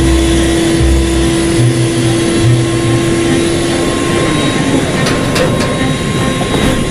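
Loud, steady jet aircraft noise: a roar with a high whine held on one pitch that sags slightly about four seconds in. A few light knocks come near the end.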